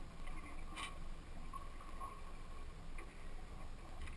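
Steady low rumble of a small fishing boat on the open sea, with one sharp knock about a second in.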